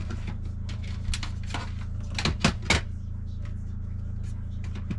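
A few sharp knocks and clatters, the loudest a quick run of three about two and a half seconds in, over a steady low hum.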